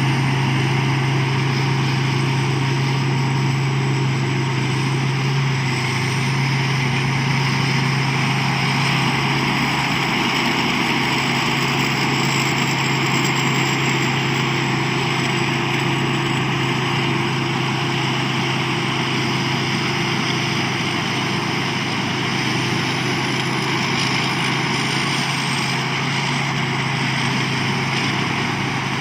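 Rice combine harvester built by Thai Seng Yont running steadily, a constant loud engine and machinery drone with a strong low hum.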